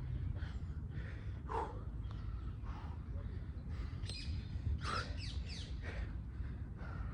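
Birds chirping in short sweeping calls, a few about a second and a half in and a quick cluster around four to six seconds in, over a steady low rumble.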